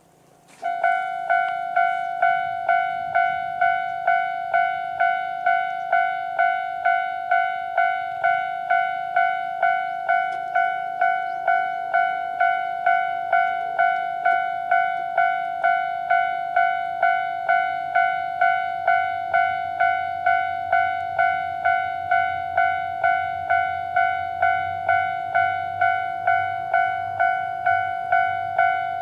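Japanese level-crossing warning bell, the electronic ding-ding alarm in its normal tone, starting suddenly about half a second in and repeating at an even pace of about one and a half strikes a second. A low rumble grows beneath it in the second half.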